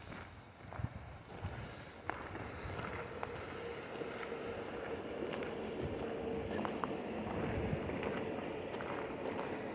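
Rushing creek water: a steady wash that grows a little louder a couple of seconds in, with a few light ticks over it.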